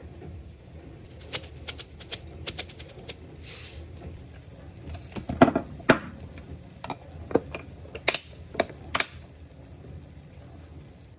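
Kitchen handling sounds around a glass meal-prep container: a quick run of light clicks, then several louder separate clicks and knocks of utensils and the clip-on plastic lid against the glass.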